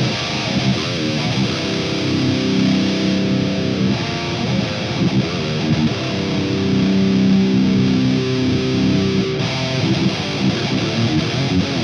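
Heavily distorted electric guitar played through the Klirrton Grindstein plugin, a Boss HM-2 style Swedish death metal 'chainsaw' tone, with chugging riffs and held low notes. About nine seconds in, the top end drops away as the blade control shelves off the highs.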